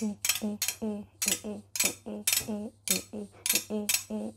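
Stainless steel dish-rack bars squeaking as they are rubbed by hand, in quick regular strokes about three a second. Each stroke is a short pitched squeak with a scrubbing hiss.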